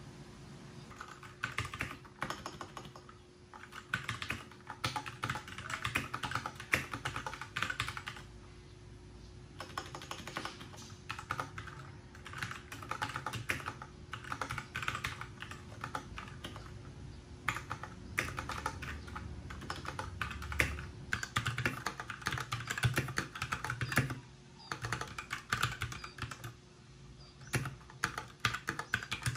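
Typing on a Royal Kludge RK61 60% mechanical keyboard: fast runs of key clicks lasting several seconds each, broken by short pauses.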